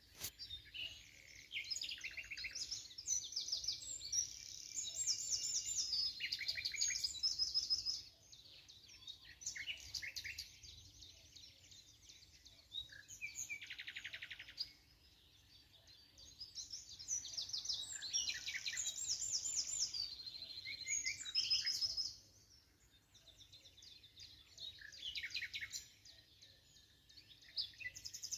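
A songbird singing long, rapid, varied phrases, in bouts of several seconds separated by short pauses, with a brief buzzy trill about halfway through.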